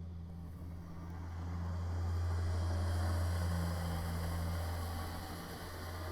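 Kubota BX compact diesel tractor running with its snow blower, the engine and blower noise swelling to a peak about three seconds in and then easing off, over a steady electrical hum.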